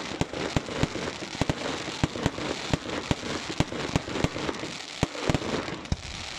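Fireworks display: sharp bangs of bursting shells, about three a second and irregular, over a continuous dense crackle from gold crackling stars.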